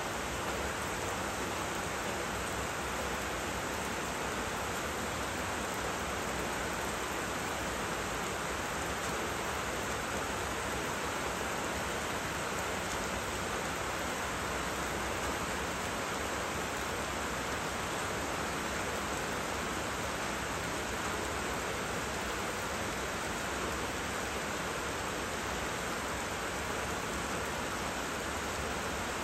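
Steady rain falling on tropical foliage and garden ground, an even, unbroken hiss that holds the same level throughout.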